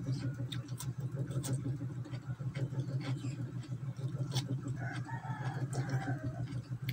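Crisp crunching and chewing of raw cucumber, heard as scattered sharp crunches over a steady low hum. A rooster crows in the background about five seconds in.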